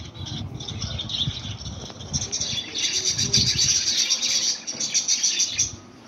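A flock of budgerigars chirping and chattering together, a dense high twittering that swells about two seconds in and cuts off abruptly just before the end.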